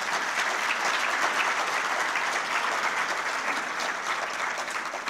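A large audience applauding, many hands clapping together in a dense patter that eases off near the end.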